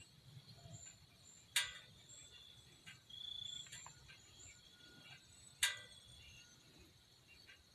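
Faint woodland ambience with scattered high chirps, broken by two sharp clicks with a short ring, one about a second and a half in and one past five seconds, and a brief higher-pitched call around three seconds.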